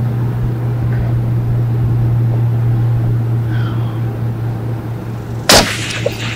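A single suppressed shot from an LMT MWS .308 Winchester rifle fitted with a Surefire SOCOM 7.62 RC suppressor, a sharp crack about five and a half seconds in, over a steady low hum.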